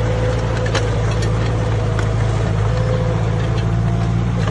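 Diesel engine of heavy earthmoving machinery running steadily at a constant speed, with a faint whine and a few light clicks over it.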